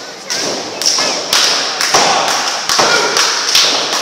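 A quick run of thuds and slaps, about two a second, of blows landing on a wrestler held down on the ring mat.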